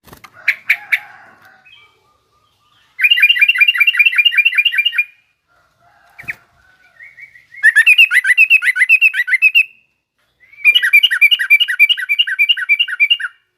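Yellow-vented bulbul (trucukan) singing: a few short calls, then three bursts of rapid, evenly repeated chattering notes, about six or seven a second, each burst lasting two to three seconds.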